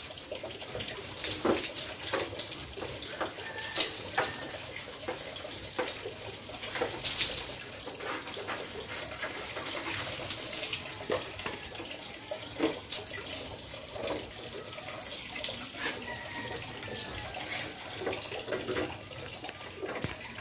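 Water poured from a plastic dipper over a metal tabletop gas stove, splashing and running off, with irregular knocks and clatter throughout.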